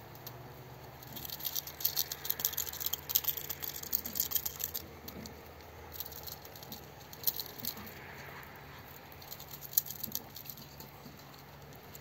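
Muscovy ducks' bills clicking and snapping as they peck cucumber pieces off the ground. The clicks come in bursts of rapid fine ticks.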